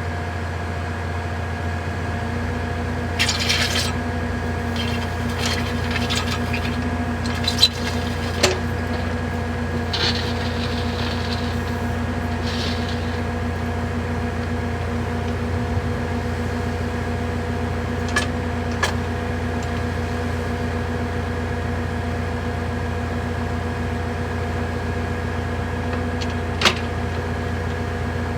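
John Deere 35G mini excavator's diesel engine idling steadily, with a few sharp clicks and clanks over the running.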